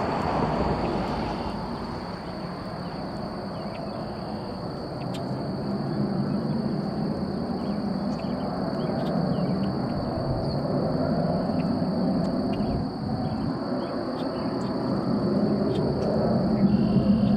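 Small business jet's rear-mounted turbofan engines at takeoff power, a steady distant rumble as the jet climbs away after lift-off.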